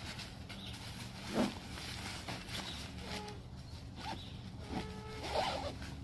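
Zipper of a nylon pop-up tent carry bag being pulled open in several short strokes.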